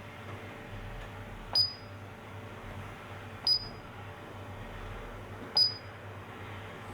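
Paradox alarm keypad giving a short high beep with each key press, three times about two seconds apart, as the arrow keys step through the alarm memory.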